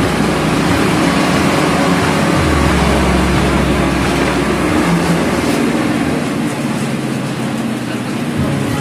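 Street traffic noise from vehicles around a busy station forecourt, with a steady low engine rumble that dies away about six seconds in.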